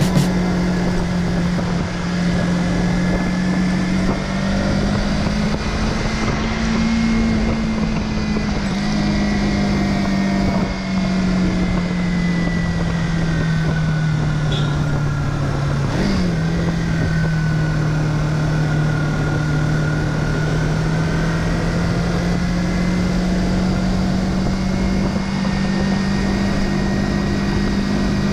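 Motorcycle engine running under the rider at a steady cruise, its note sinking slowly, dipping sharply about halfway through, then climbing gently again, with wind rushing over the microphone.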